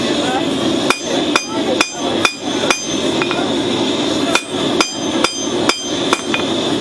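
Hand hammer striking red-hot rasp steel on an anvil, each blow a sharp ringing clang. About five quick blows come, then a pause of over a second, then five more, over a steady rushing noise.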